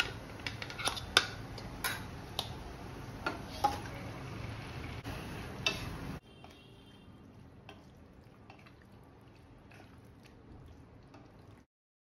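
Metal spatula clinking and scraping in a stainless steel kadhai as marinated chicken pieces are tipped in and stirred into the masala, with many sharp clinks. About six seconds in, the sound drops abruptly to quieter stirring, then cuts out briefly near the end.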